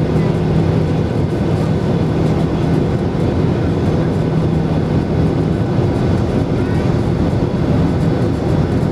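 Steady cabin noise inside a Boeing 737-800 taxiing, its CFM56 engines near idle giving an even low hum.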